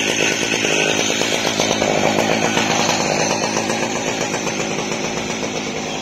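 Chainsaw of an Alaskan sawmill idling steadily, its two-stroke engine running with a fast, even beat.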